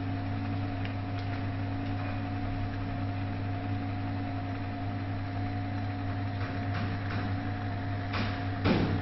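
RMS Vesta 301i ECG machine's built-in thermal printer running, feeding the paper strip out as it prints the ECG: a steady mechanical hum with a few steady tones. Near the end come a few short rustles or clicks.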